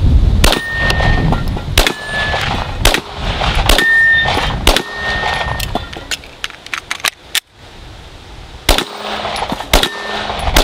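A string of gunshots at steel targets, roughly one a second with a short pause partway through; several shots are followed by the brief high ring of a struck steel plate.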